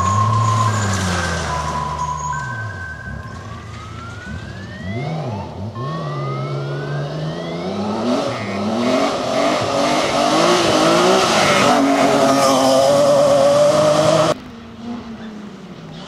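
BMW E36 3 Series rally car engine at full throttle: the revs fall at first, then climb repeatedly with a drop at each upshift, and the car gets loudest as it comes close. About fourteen seconds in the sound cuts to a quieter second rally car, an Opel Adam, running further off.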